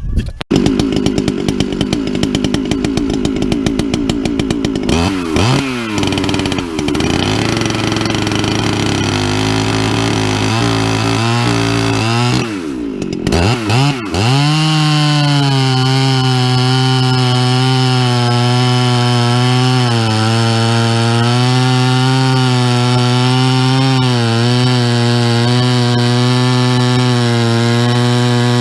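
Large two-stroke chainsaw on an Alaskan mill starting and running at a rough idle, revved a few times, then held at full throttle from about halfway through as it rips along the log, its pitch wavering slightly under load.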